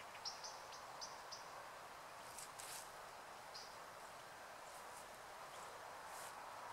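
Faint outdoor ambience in a rural clearing: a steady soft hiss, with a few short high bird chirps in the first second and a half and another about three and a half seconds in, plus a couple of brief rustles.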